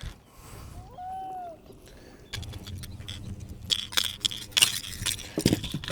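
Rattling and knocking clicks as a freshly landed pike and its lure are handled at the boat, densest in the second half, with a single knock at the start.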